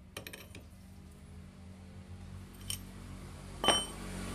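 Metal hand tools working the clutch center nut on a Yamaha Vega ZR: a quick run of small ratchet-like clicks at the start, a lighter click partway through, then a sharp, ringing metallic clink near the end, as the nut is tightened against a held spanner. A low steady hum grows louder underneath.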